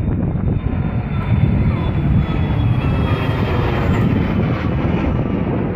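Jet engines of a rear-engined regional jet passing overhead: a steady, loud rumble with a faint high whine that drifts slightly lower.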